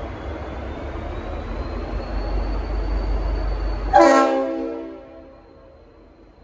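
Leslie RS5T five-chime horn on an N class diesel locomotive sounding one short blast about four seconds in, a chord of several pitches that dies away over about a second. Before it, a steady low locomotive rumble with a faint rising whine.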